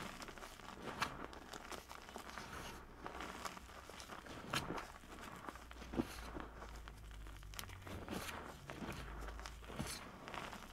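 Hands crumbling dyed cornstarch chunks and pressing into loose cornstarch powder: soft, steady crunching and crackling, with a few sharper crisp snaps as chunks break.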